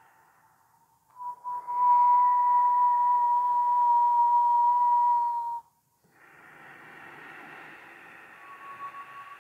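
A long breath whistled through pursed lips, holding one steady note for about four seconds and cut off sharply, followed after a brief pause by a softer, breathy breath with a faint whistle near the end.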